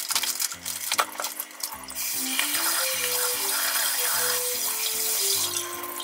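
Kitchen tap running water into a sink in a steady gush for about three and a half seconds, starting about two seconds in, after a couple of light knocks.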